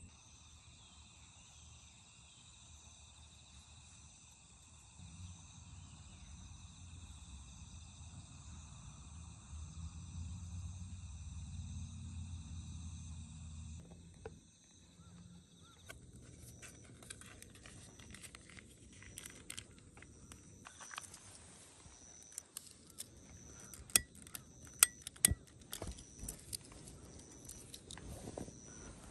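Crickets trilling steadily. From about halfway, chunks of charcoal tumble and clack into a steel fire pit, with a run of sharp clacks a few seconds before the end.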